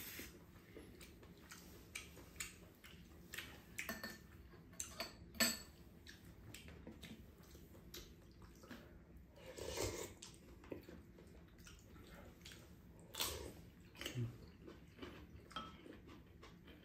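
Chopsticks and spoons clinking and scraping against ceramic bowls, with chewing, during a meal: scattered light clicks, the sharpest about five seconds in.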